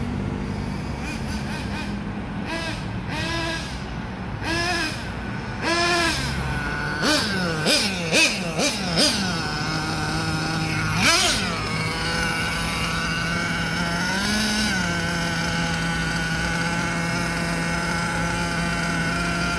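Team Magic B8JR 1/8-scale nitro buggy engine revving up and down as the car is driven, with a string of sharp throttle blips. About halfway through it settles into a steady high idle, with one brief blip.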